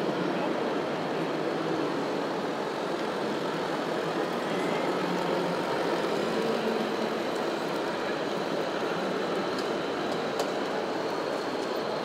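Radio-controlled King Hauler scale truck driving with a log trailer, giving a steady mechanical running drone without changes in pitch.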